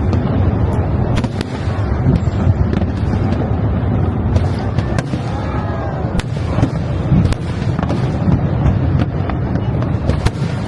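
Aerial fireworks bursting in a dense barrage: a steady run of sharp bangs and crackles over a continuous deep rumble, with a few whistling glides about midway through.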